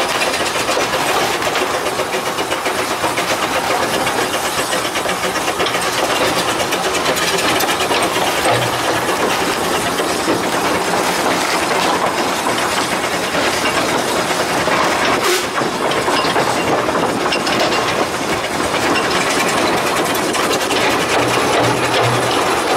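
Narrow-gauge steam locomotive under way, heard from its footplate: a steady hiss of steam over the running noise of the engine and wheels, with scattered clicks from the rails and one sharper click about fifteen seconds in.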